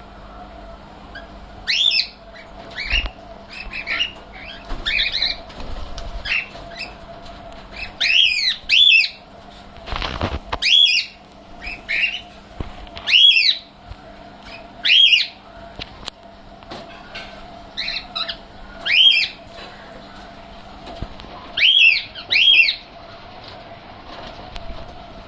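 A bird calling with short, arching chirps, often in pairs, repeated every second or two over a steady hum. A single brief rustle or knock comes about ten seconds in.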